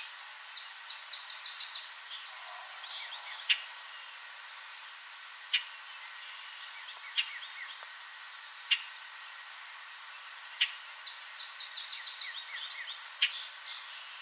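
Common grackle giving short, sharp single call notes, roughly one every two seconds. Runs of faint, quick chirps from other birds sound in the background.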